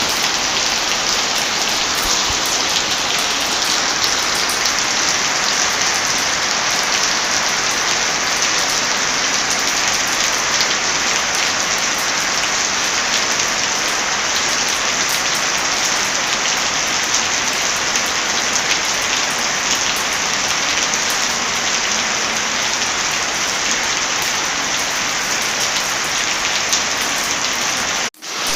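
Heavy rain falling in a steady dense hiss. A little after 28 seconds the sound drops out for a fraction of a second, then comes straight back.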